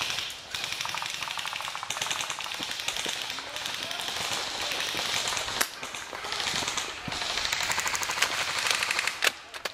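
Airsoft electric guns firing long full-auto bursts, a fast, even rattle of shots, with short breaks between bursts.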